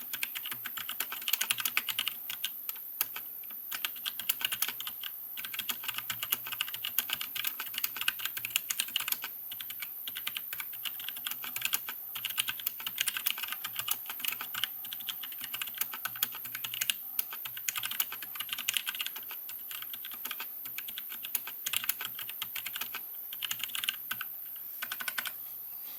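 Fast, continuous typing on a mechanical keyboard with Gateron blue switches modded as "Jailhouse Blues": rubber spacers lock the click jackets, so the keys give a tactile bump without the usual blue click. The spacers also cushion the bottom-out, making it softer and a lot quieter than normal keys. The typing breaks off briefly a few times.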